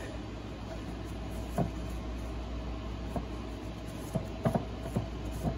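A few faint, scattered taps and knocks as a rag and brush work over a manual transmission's input-shaft splines, wiping off excess grease, over a steady low hum. Three of the knocks come close together about four and a half seconds in.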